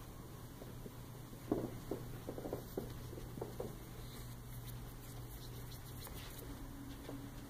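A steady low hum with a run of soft, irregular taps and knocks starting about a second and a half in and lasting about two seconds, the first tap the loudest.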